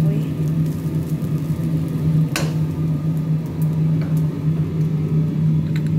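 A steady, low electric-motor hum, like a kitchen fan running, with one sharp click about two seconds in.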